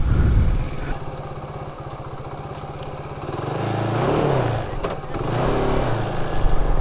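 Motorcycle engine running at low revs, then revved up and back down twice from about three and a half seconds in. There is a single sharp knock between the two revs.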